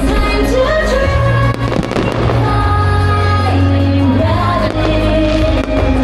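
Loud music with singing, the soundtrack of a fireworks display, with firework bangs going off over it, several close together about two seconds in.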